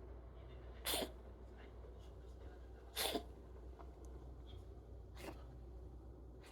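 American Curl cat making short, sharp sneeze-like expulsions: two loud ones about a second in and three seconds in, and a fainter one near the end. The owner cannot tell whether they are sneezes or coughs; they come from a cat that has fallen ill.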